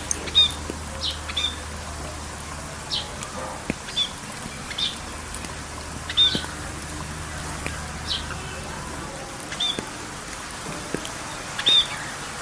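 Birds calling with short, sharp chirps, roughly one a second at irregular spacing, over a steady background hiss.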